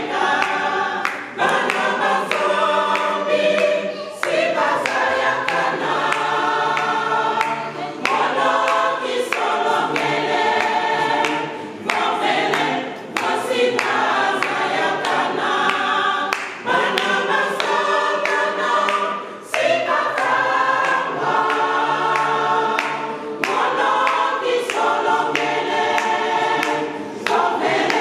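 A church choir singing a hymn in harmony, in held phrases with short breaks between them.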